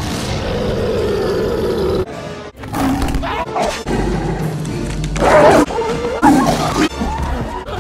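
Animated-film soundtrack: a cartoon lion's long roar for about the first two seconds, then animal growls and snarls of a fight over music, with two loud peaks about five and six seconds in.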